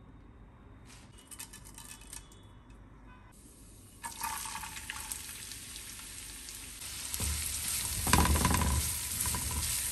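Hot oil sizzling in a nonstick frying pan. Chopped onions are tipped in about four seconds in and the sizzle grows. From about seven seconds a silicone spatula stirs and scrapes the onions around the pan, the loudest part.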